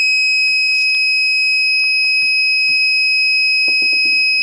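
Infrared methanometer's alarm buzzer sounding one unbroken high-pitched tone, set off by the instrument's methane reading of about 2.5%. Faint handling clicks and knocks lie beneath it.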